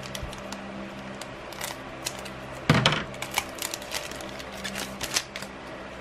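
Foil booster pack wrapper crinkling and crackling in the hands, with a louder crackling tear about two and a half seconds in as the pack is ripped open, then cards being handled.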